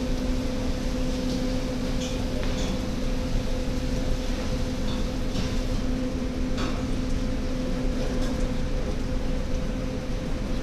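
Steady electric motor hum under an even hiss, with a few faint light clicks.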